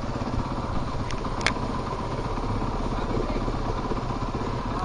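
Dirt bike engine running at a steady idle close to the microphone, with two short sharp clicks about a second in.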